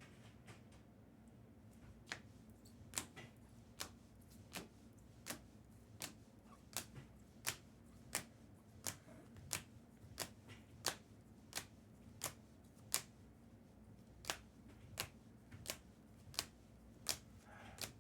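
A run of sharp clicks, a little more than one a second, from trading cards being handled one after another.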